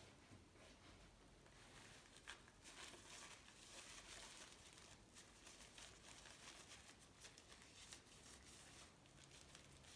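Near silence, with faint scattered rustling and small clicks of hands handling the bike parts.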